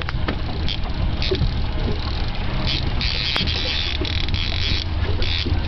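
Steady low rumble of wind on the microphone out on open water, with short bursts of hiss every second or so and a longer one about three seconds in.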